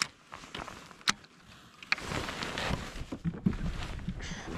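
A few sharp clicks, then, about halfway through, a rough, uneven rumble of strong wind buffeting the microphone.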